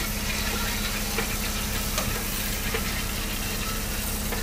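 Fire truck engine running steadily: a constant low hum with a fixed tone and a fast low pulsing, with scattered faint clicks over it.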